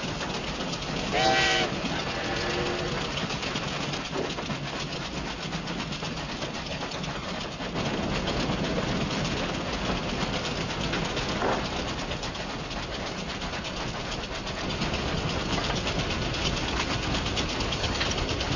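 Train running along the rails with a steady rumble and clatter, and a short whistle blast about a second in.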